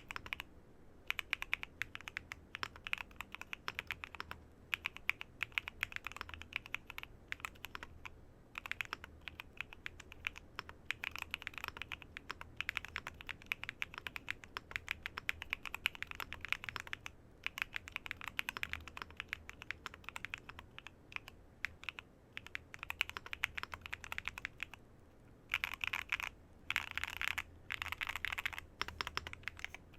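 Typing on a mechanical keyboard (Swagkeys Transition Lite with Kailh Box Cream Pro linear switches, ABS keycaps and a polycarbonate plate): continuous runs of keystrokes with short pauses, and a few bursts of fast keystrokes near the end.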